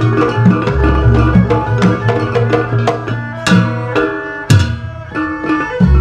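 Jaranan campursari ensemble music: Javanese kendang hand drums play a quick, busy rhythm with sharp accented strokes over violin and other melodic instruments. A deep low note swells in about a second in and again near the end.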